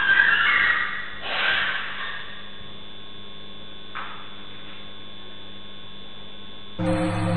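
Steady electrical hum in a low-quality camera recording, with two short noisy sounds in the first two seconds and a faint click about four seconds in. Music with held tones comes in near the end.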